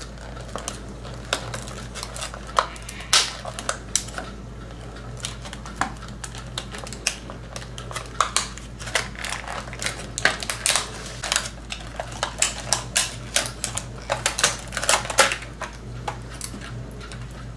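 Small plastic toy playset pieces clicking, tapping and clattering as they are handled and set in place, in irregular bursts that come thicker in the second half.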